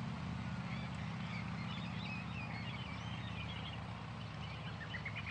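Birds chirping and calling in short, scattered notes over a steady low background rumble.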